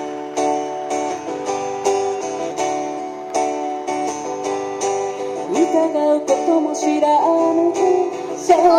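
Background music: a song carried by a strummed acoustic guitar with a steady strumming rhythm.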